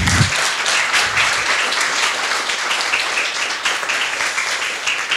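Audience applauding, many hands clapping together in a steady, dense patter.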